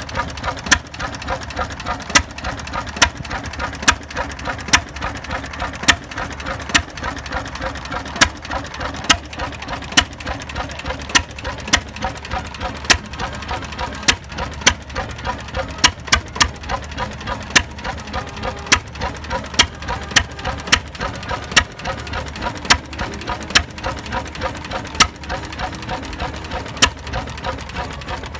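Vintage single-cylinder horizontal stationary engine with twin spoked flywheels, running slowly. A sharp beat comes about once a second, some louder than others, over fast mechanical ticking between the beats.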